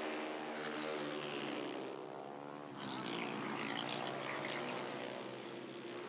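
Several speedway motorcycles racing round the track, their single-cylinder engines running together in a steady drone. A hissing wash of higher noise swells briefly about three seconds in.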